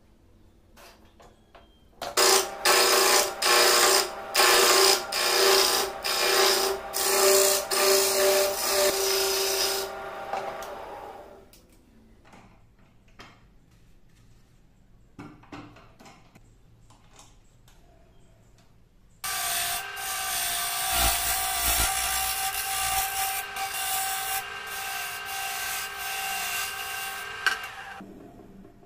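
Wood lathe running while a turning tool cuts the spinning segmented vase of rosewood, rengas and maple, in two bouts: one from about two seconds in to about ten seconds, rising and falling with each pass of the tool, and a steadier one from about nineteen seconds until shortly before the end.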